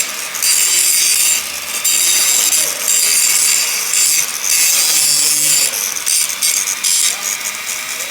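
Rhythmic back-and-forth scraping by hand on metal, about one stroke a second, each a harsh hiss lasting well under a second, typical of working over a cast-iron weld by hand.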